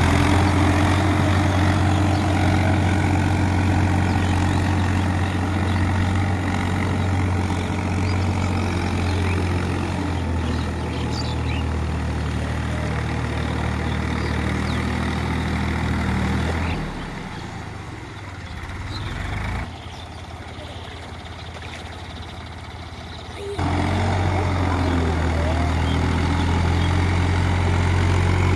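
Diesel tractor engine running steadily under load while it drives a rotary tiller through a flooded rice paddy, a low even drone. Past the middle it turns much quieter for several seconds, then comes back at full level.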